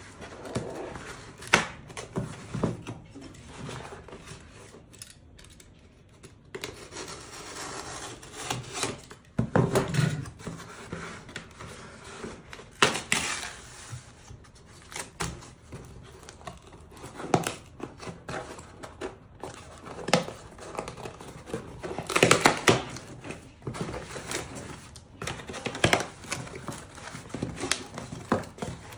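Corrugated cardboard box being opened by hand: flaps creasing and scraping, cardboard rustling and sliding, with scattered sharp knocks and clicks.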